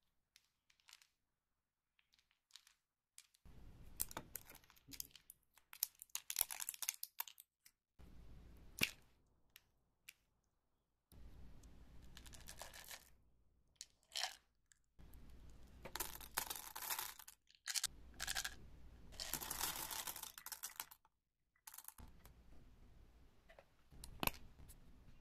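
Plastic candy wrappers being torn and crinkled open, a crackly rustle with sharp clicks coming in irregular spells and short pauses between them.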